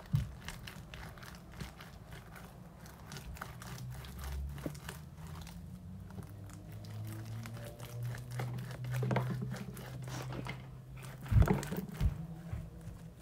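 Stiff, putty-like home-made slime being kneaded and squeezed by hand: a continuous run of small crackling, squishing clicks. A couple of sharp knocks come near the end.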